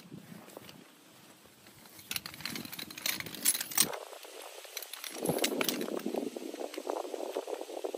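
Metal legs of a folding tripod stand clicking and clattering as it is unfolded by hand: a run of sharp clicks about two to four seconds in, then denser rattling and scraping.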